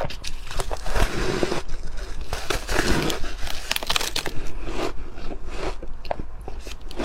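Ice being bitten and chewed close to the microphone: repeated crisp crunches and crackles of ice breaking between the teeth, in irregular clusters.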